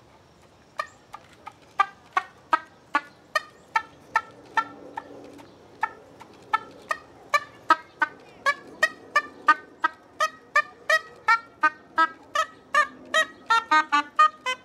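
Soprano saxophone playing short, detached staccato notes one after another, at first about two a second and quickening to three or four a second near the end.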